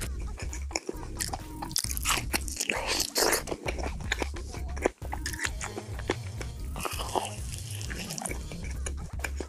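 Close-miked ASMR eating: biting into and chewing a fresh strawberry, then biting into a cream-topped donut near the end, with many short crisp clicks and wet mouth sounds of chewing.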